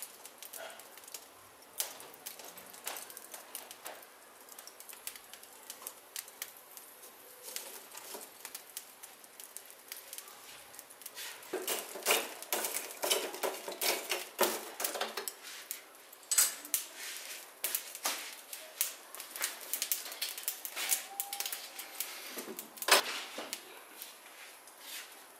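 Charcoal fire crackling and popping in a metal barbecue firebox. About halfway through, the burning coals are stirred with a metal rod, giving a louder, busy run of clinks, scrapes and pops for a few seconds, and a sharp knock comes near the end.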